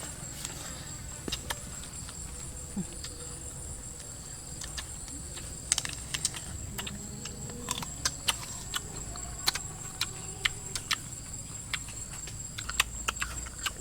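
Steady high-pitched drone of insects, crickets or cicadas, with scattered sharp clicks and taps that come thicker in the second half.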